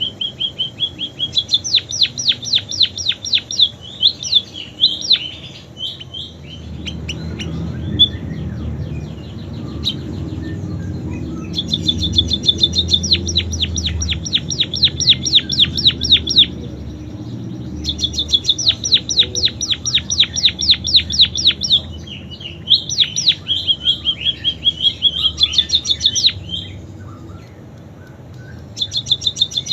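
Caged pipit singing a canary-style song: bouts of fast, high trills of quick downward-sweeping notes, several bouts with short breaks between them. A low rumble sits in the background through the middle.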